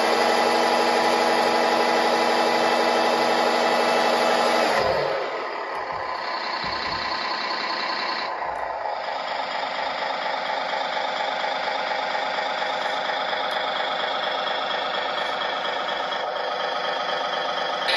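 Simulated diesel truck engine from the model tipper truck's Servonaut sound module, played through its onboard speaker: held at raised revs for about five seconds while the tipper body comes down, then dropping back to a steady idle.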